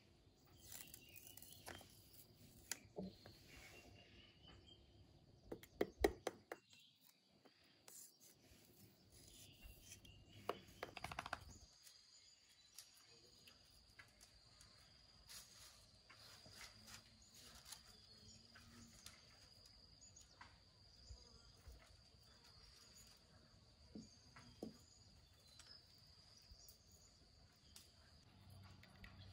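Faint knocks, clicks and rustles of thin bamboo strips being split with a cleaver and sorted by hand, the loudest knocks about six seconds in. A steady high-pitched insect drone runs behind.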